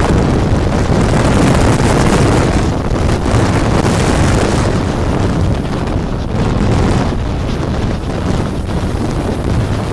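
Wind rushing over a microphone held out of a moving train's carriage window, over the steady running noise of the train along the track.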